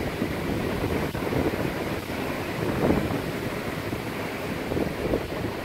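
Rough sea surf breaking and washing over shoreline rocks, a steady rushing wash with uneven swells, with wind buffeting the microphone.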